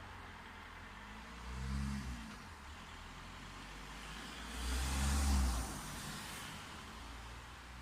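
Two motor vehicles driving past, each with an engine hum that swells and fades: a shorter pass about two seconds in and a louder one about five seconds in, with tyre noise.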